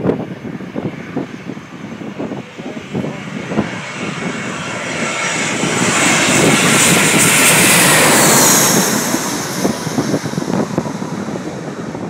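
A landing airplane passes close by: its engine noise swells, peaks for a few seconds with a high whine that drops in pitch as it goes past, then fades. Wind buffets the microphone throughout.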